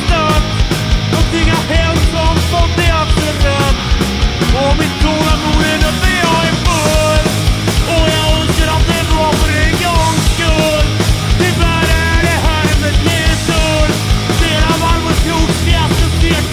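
Punk rock band playing an instrumental passage: a driving drum beat with steady cymbal hits, bass and guitars, and a melodic lead line moving on top.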